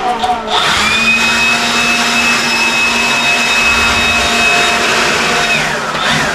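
A high-speed electric fan motor spinning up about half a second in, running steadily with a high whine for about five seconds, then winding down near the end.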